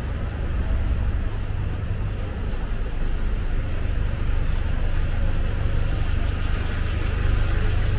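Busy city street ambience: a steady wash of road traffic with a continuous low rumble, with no single vehicle or event standing out.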